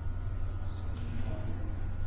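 Steady low hum with a thin constant high tone above it: background room and electrical noise, with no speech.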